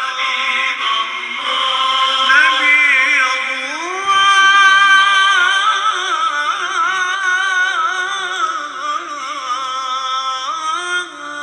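Repaired small Bluetooth speaker playing a song with a singing voice, loud and clear, showing the speaker works on its new lithium battery. The music cuts off suddenly near the end.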